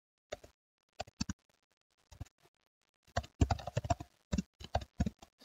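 Typing on a computer keyboard: irregular keystroke clicks in small clusters, densest about three seconds in.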